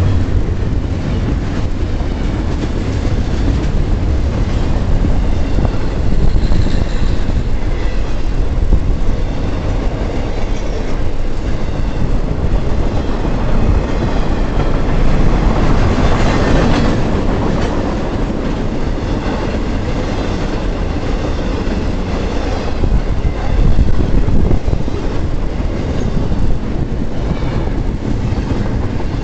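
Double-stack intermodal container cars of a freight train rolling past close by: a loud, steady rumble of steel wheels on rail with clickety-clack over the joints.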